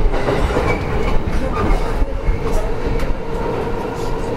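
Running sound inside a JR East E231 series 500 electric commuter train under way: a steady rumble and hum of wheels on rails and motors, with a few clicks as the wheels cross rail joints.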